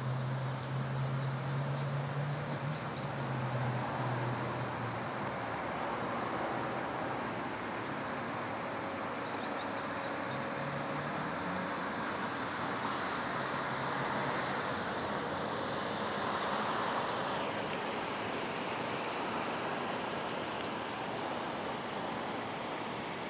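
Steady outdoor vehicle and traffic noise, with a low engine hum that fades out after about five seconds.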